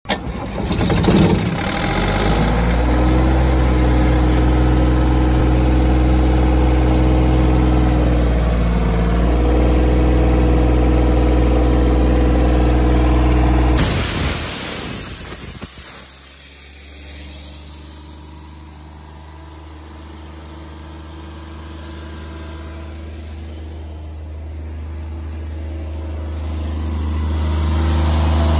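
Yanmar diesel engine of an Airman 90 cfm portable air compressor starting with a short burst in the first second or two, then running at a steady idle. About halfway through the sound drops abruptly in level, and the engine's steady running grows gradually louder again toward the end.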